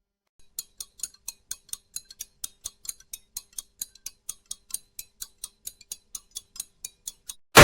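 Echoing clock-ticking sound effect: a fast, even run of crisp ticks, about four to five a second, starting about half a second in. At the very end a loud glass-shattering impact cuts in.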